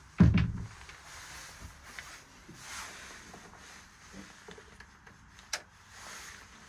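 A heavy, dull thump just after the start, followed by faint rustling and light ticks, and one sharp click a little after five seconds in.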